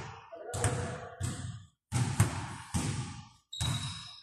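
Basketball bouncing on a hardwood gym floor: about five thuds, spaced well under a second apart, each ringing on in the hall's echo.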